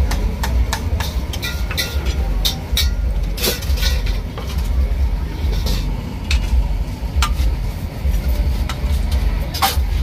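Kitchen utensils clinking and tapping on stainless-steel mixing bowls in a scatter of short, sharp clinks, over a steady low rumble.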